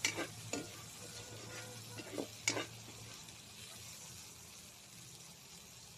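Chopped meat and vegetables sizzling in a wok, with a few sharp scrapes of stirring against the pan in the first three seconds, the loudest about two and a half seconds in.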